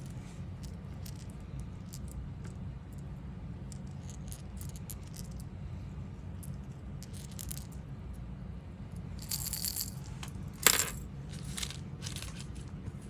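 Scattered small hard clicks and light clinks as fishing lures and their plastic packaging are handled, with a denser run of them a little after nine seconds and one sharper click near eleven seconds. A low steady hum runs underneath.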